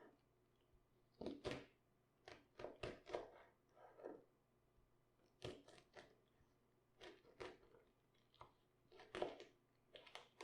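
Raw cabbage crunching and crackling in short, irregular bursts, as it is cut or worked by hand for sauerkraut.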